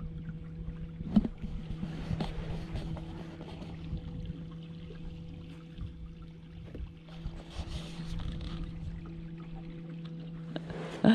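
Small electric trolling motor on a canoe's stern humming steadily as it pushes the canoe along. There is a brief knock about a second in and a louder knock near the end.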